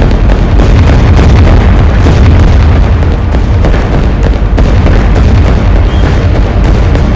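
Jet aircraft flying over, a very loud, steady rumble with heavy low bass and no gaps.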